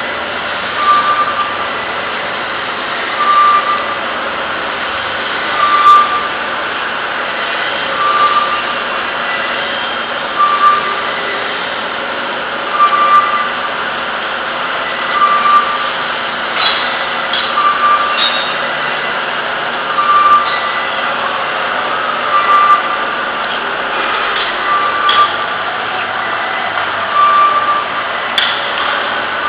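Steady running noise of a CNC machine cutting a lubrication groove into a part. A short electronic beep repeats about every two and a half seconds, with a few faint clicks in the second half.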